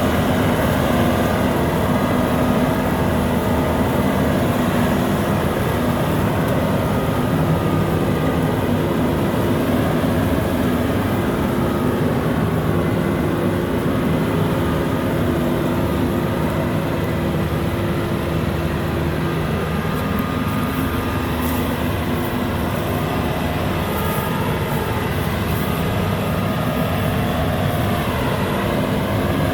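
Rice combine harvester running steadily, its engine and machinery making a continuous sound with several constant tones and no change in speed.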